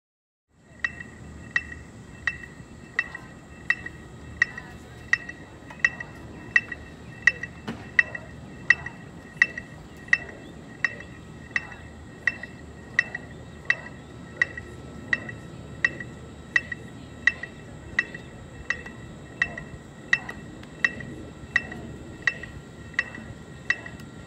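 Electronic metronome beeping a steady marching tempo of about 85 beats a minute, each beep a short high-pitched click. It comes in just under a second in, over a steady background of outdoor noise.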